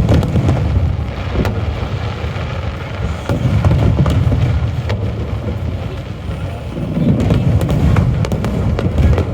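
Fireworks display: low booms that swell in three waves, at the start, about three and a half seconds in and about seven seconds in, with many sharp cracks and bangs throughout.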